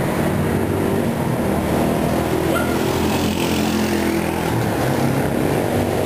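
Street traffic noise with motorcycle engines running, a steady, fairly loud din with engine hum low down.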